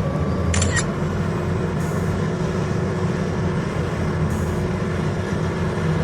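Heavy mining machinery running steadily, a loud low engine drone from a big mining excavator and its haul trucks. A short high-pitched sound cuts in briefly about half a second in.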